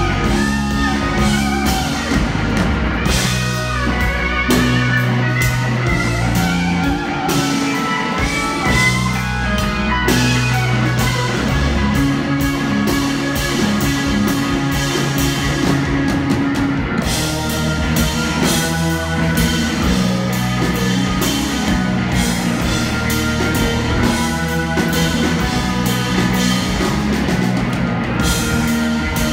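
Live blues-rock band playing an instrumental passage: a Telecaster-style electric guitar takes the lead line over a drum kit and organ.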